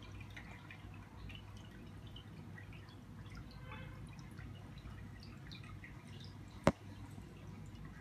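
Aquarium water trickling and dripping softly in small irregular drips over a low steady hum. A single sharp click about two-thirds of the way through.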